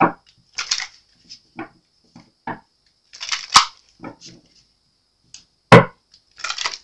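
Tarot cards being shuffled by hand: a string of short, uneven rustles and flicks as the deck is split and worked. It is broken by one sharp knock a little under six seconds in, the loudest sound.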